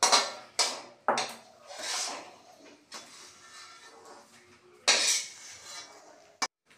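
A spatula scraping and knocking against a metal kadai of thick chutney, with clanks as the pan is handled: a series of short scrapes and clinks, the loudest at the start and about five seconds in.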